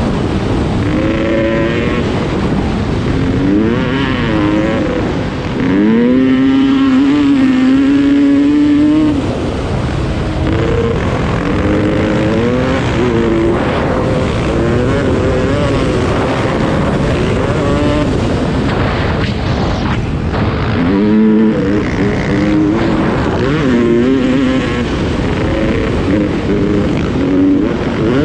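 Dirt bike engine running under load, its pitch repeatedly rising and falling as the throttle and gears change, held steady for a few seconds near the start.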